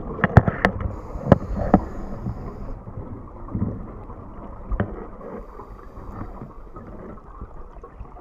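Underwater sound heard through a waterproof camera housing: a muffled, steady rumble and hiss, with a few sharp clicks in the first two seconds and one more about five seconds in.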